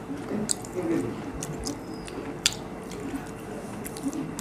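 Eating by hand: scattered short wet clicks and smacks of chewing and of fingers working rice and fish curry on metal plates, over a faint steady hum.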